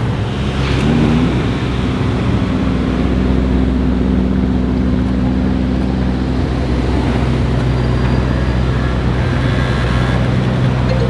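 Vehicle engine running steadily at low revs, with a slight rise in pitch about a second in.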